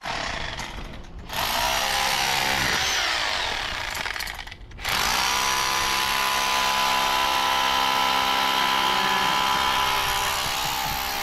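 Corded rotary hammer drilling and chipping into a concrete curb, run in two long bursts with a brief stop a little before halfway through.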